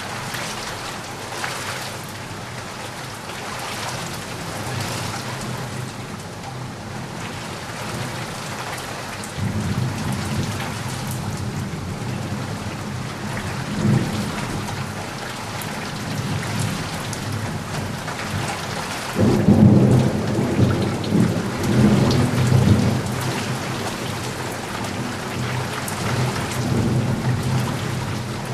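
Steady rain falling, with rolls of thunder: a low rumble about ten seconds in and a louder, longer one about twenty seconds in.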